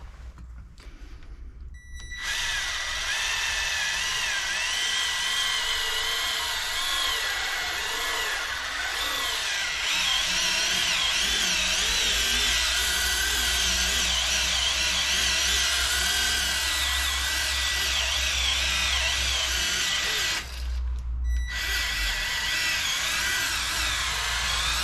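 Draper cordless rechargeable polisher spinning a foam pad with cutting compound against a yellowed, UV-damaged headlamp lens: a steady high motor whine that starts about two seconds in, its pitch wavering. It stops briefly near the end and starts again.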